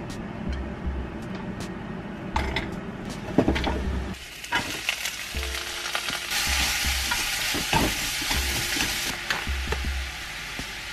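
Sliced onion and shimeji mushrooms frying in olive oil in a nonstick frying pan, stirred with wooden chopsticks. The sizzling swells about four seconds in and is loudest in the middle.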